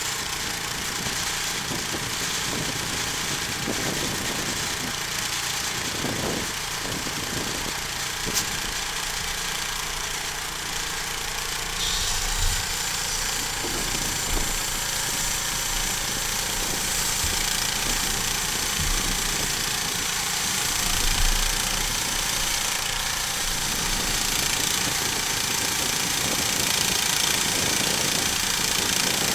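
Homemade sawmill running steadily through a cut. Its engine drones on, and the sound turns brighter and hissier about twelve seconds in.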